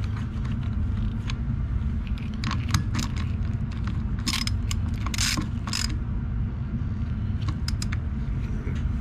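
Light metallic clicks and scrapes of a socket driver turning a brass fitting into a carburetor body, sharpest and most frequent about halfway through, over a steady low hum.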